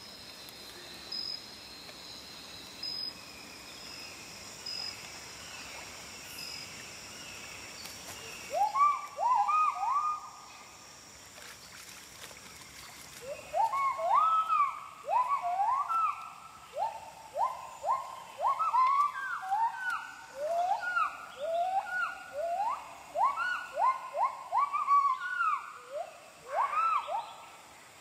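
Wild animals calling over a steady high insect drone: rising whooping calls, a short bout about eight seconds in, then a longer run from about halfway in, with several callers overlapping.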